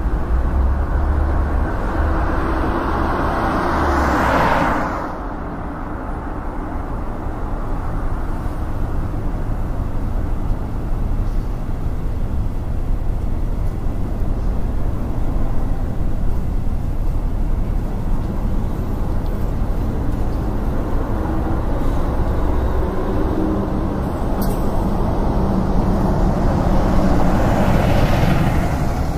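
Steady background rumble that swells and fades twice, about four seconds in and again near the end.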